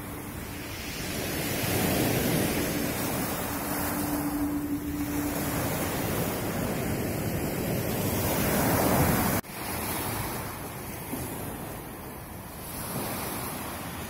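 Black Sea surf breaking and washing in to shore, a steady rush that swells and eases in surges. The sound drops abruptly about nine seconds in, then builds again.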